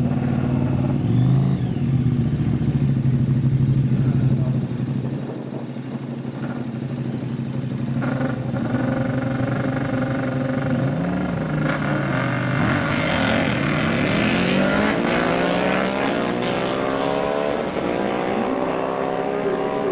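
Two drag-racing motorcycles idling steadily on the start line, then launching about twelve seconds in, their engines rising sharply in pitch as they accelerate hard away down the strip.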